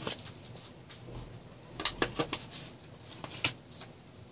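A shaker canister of grated parmesan being shaken and tapped over a pan of pasta: a few sharp clicks, three in quick succession about two seconds in and another a little later.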